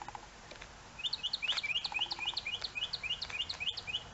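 A small bird chirping in a rapid run of short, sharp, high notes, several a second, starting about a second in.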